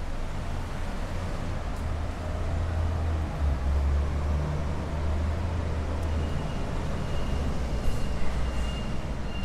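Road traffic on a city street: a steady low engine rumble of vehicles passing, swelling a few seconds in.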